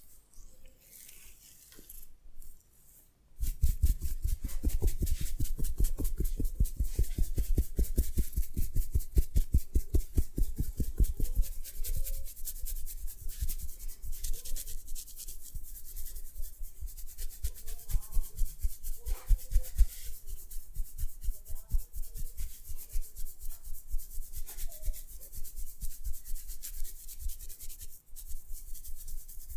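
Massage strokes rubbing rapidly and rhythmically, several a second, starting about three seconds in.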